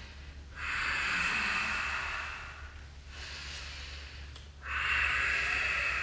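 A man breathing loudly in time with a yoga movement: two long breaths, each about two seconds, the second beginning a little under five seconds in.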